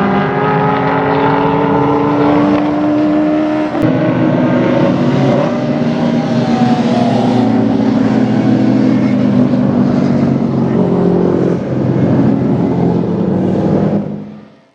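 Group C / Group A touring race car engine at full throttle, its pitch climbing, dropping sharply at a gear change about four seconds in, then climbing again before the sound fades out near the end.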